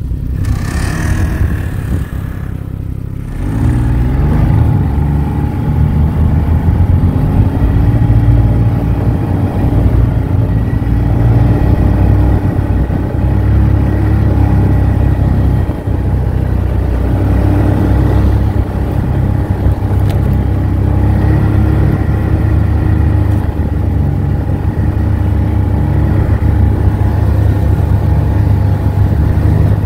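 Ski-Doo snowmobile's four-stroke Rotax ACE engine heard from the rider's seat, quieter for the first few seconds, then pulling away about three and a half seconds in and running at steady throttle, its pitch rising and dipping slightly with speed.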